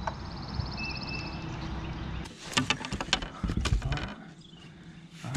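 Steady low hum with birds chirping, which stops abruptly about two seconds in. Then a run of knocks and rattles as a landing net with a small bass in it is handled on a bass boat's deck.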